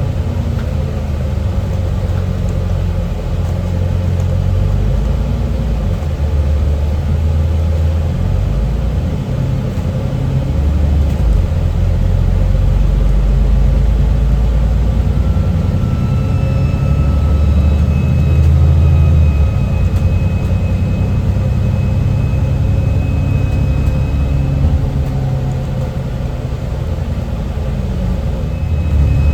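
Alexander Dennis Enviro400 MMC double-decker bus engine running under way, with a low rumble that rises and falls as the bus picks up speed and changes gear. A thin high turbo whistle comes in about halfway through, over a steady hiss from the heater fans.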